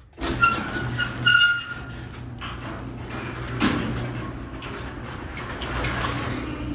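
LiftMaster 3/4 hp belt-drive garage door opener starting up and running steadily as it closes the garage door: a steady motor hum with the door rolling down. Short high squeaks come in the first second or so, and a single knock a little under four seconds in.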